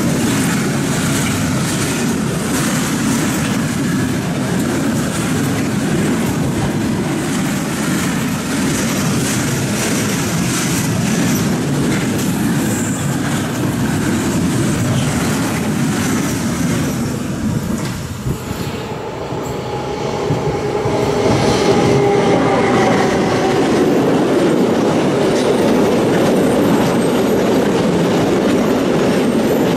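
Freight trains passing at speed: first a long intermodal train of container and swap-body wagons rumbling by, with the wheels knocking repeatedly over the rail joints. After a short dip about 18 s in, a train of open box wagons takes over, and for a few seconds a faint whine or squeal sounds over its rumble.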